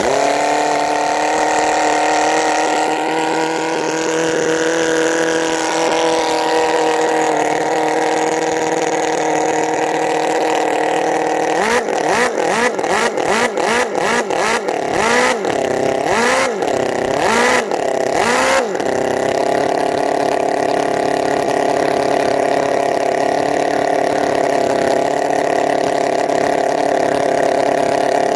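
Enjomor 36cc four-cylinder four-stroke model engine running just after starting, freshly rebuilt with new connecting rod bushings. It holds a steady speed at first. For about seven seconds in the middle its speed rises and falls over and over, then it settles back to a steady run.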